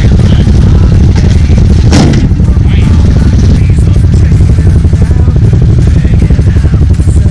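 ATV engine running with a loud, steady pulsing rumble as a quad backs down the trailer's aluminium loading ramps; a single sharp clank about two seconds in.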